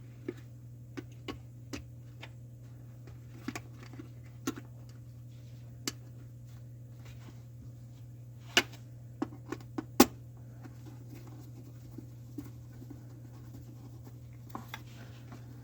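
Scattered sharp clicks and taps of hand-tool work, a screw and screwdriver on the new garbage disposal's metal electrical access panel, at irregular times with two louder knocks past the middle, over a steady low hum.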